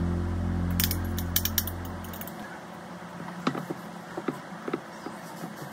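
Background music fading out over the first two seconds, with scattered light clinks and taps of a spoon on a bowl and dishes as filling is spooned onto lavash and the rolls are laid in a glass baking dish.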